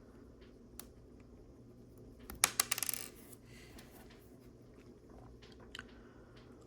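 Small plastic Lego pieces clattering together as they are sifted through, with a burst of rattling about two and a half seconds in and a few single clicks before and after.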